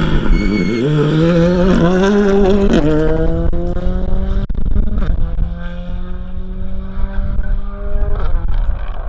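Ford Fiesta rally car accelerating hard through the gears. The engine note climbs in pitch and drops sharply at each of three upshifts, with a few sharp cracks around the gear changes.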